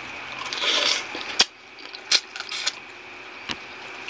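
Close-up eating sounds as a man sucks and chews a shrimp held to his mouth: a short noisy suck about a second in, then a few sharp mouth smacks, over a faint steady high tone.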